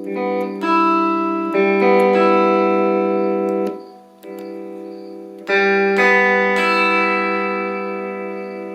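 A 1983 Fender Stratocaster Elite electric guitar played clean, a series of chords struck and left ringing, with a short break about four seconds in before more chords, the last fading out. There is no hum or oscillation noise under the notes: the fault is cured.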